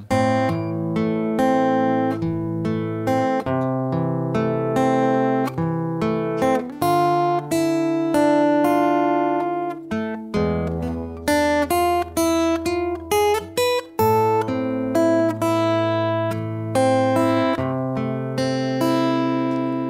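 Steel-string acoustic guitar fingerpicked: a melody of single plucked notes over ringing bass notes in A minor, with a deep bass note held for a few seconds about halfway through.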